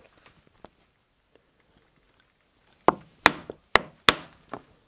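A mallet striking a flat leather stitching chisel, driving a row of stitching holes through the leather: four sharp knocks in quick succession about three seconds in, then a lighter tap.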